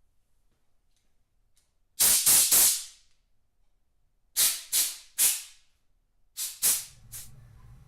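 A pressurised jet hissing in short blasts, three groups of three, while carburetor parts are blown or sprayed clean. A faint low hum sets in near the end.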